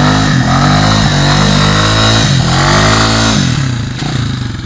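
Off-road vehicle engine revving hard under throttle on a steep climb. The revs climb, dip briefly about two seconds in, climb again, then fall away near the end.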